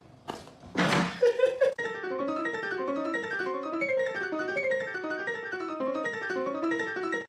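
A few short noisy sounds, then a quick, repeating piano-like keyboard melody that cuts off suddenly.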